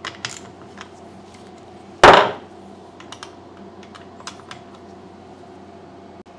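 Small metal clicks and taps of a hand wrench on the carburettor mounting nuts of a chainsaw, with one loud thump about two seconds in, over a steady low hum.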